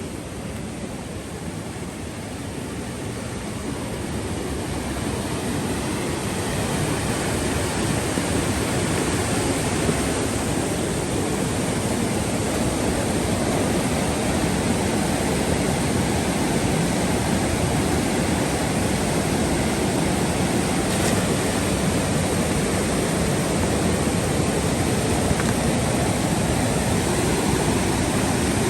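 A flooded river rushing, a steady noise of fast water that grows louder over the first few seconds and then holds.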